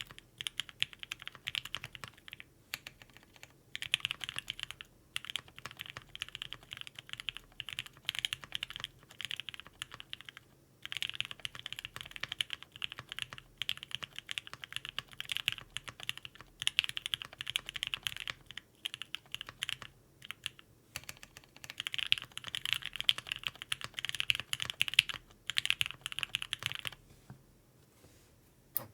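Fast typing on a CannonKeys Bakeneko60 mechanical keyboard with lubed and filmed H1 switches, an FR4 plate and GMK keycaps: long runs of rapid keystrokes broken by a few short pauses, stopping about two seconds before the end.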